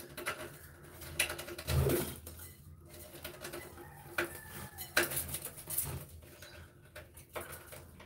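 Irregular clicking and ticking of a white pigeon pecking seed from a seed bowl, with a few soft budgie chirps.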